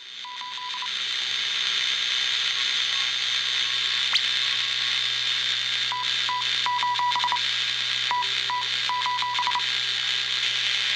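Shortwave receiver audio, from a Heathkit Comanche MR-1 tuned to the 40-metre band: steady band hiss with Morse code (CW) coming through as short beeps of one mid-pitched tone. The hiss fades in over the first second, and the dots and dashes come in three runs: at the start, around six seconds in, and from about eight to nine and a half seconds in.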